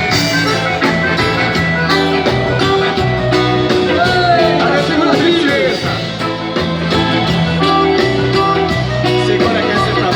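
Live band music with a steady beat, played without sung lyrics.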